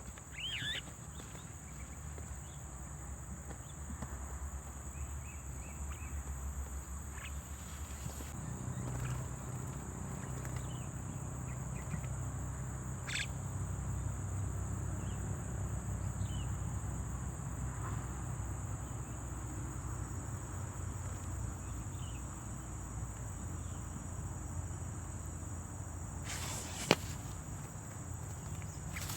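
Steady high-pitched drone of insects, over a low rumble, with a few brief chirps scattered through and one sharp click near the end.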